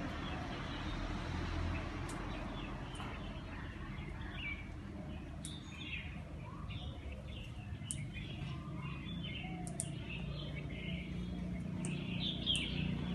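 Many small birds chirping in short, overlapping calls and trills, over a steady low background rumble.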